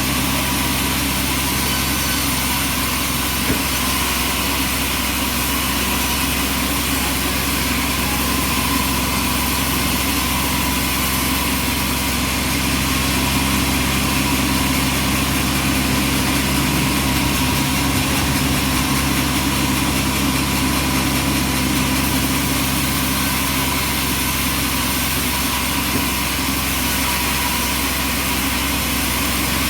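Bandsaw sawmill's engine running at a steady speed, with an even hiss over it and no change in pitch or load.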